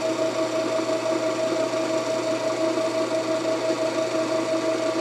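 Old Craftsman metal lathe running under its motor with the spindle turning at steady speed: an even mechanical hum with a steady mid-pitched tone.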